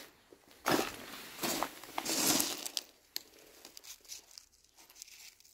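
A hand scooping a handful of light, porous white stones from a heap, the stones crunching and grating against each other for about two seconds, then a few small clicks as they settle in the palm.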